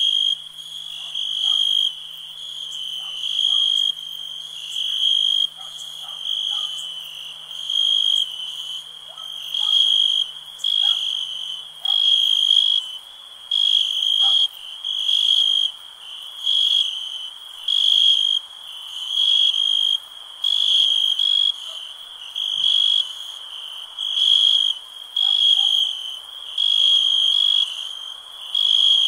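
Night-time chorus of crickets chirping loudly in a steady rhythm, about one chirp a second, with faint scattered frog calls lower down.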